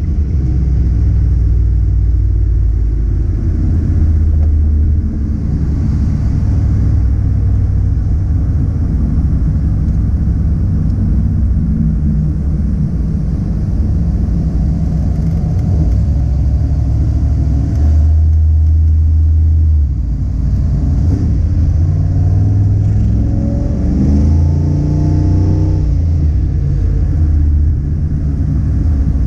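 Car engine running loud and steady with a deep low rumble, its revs rising and falling several times in the second half.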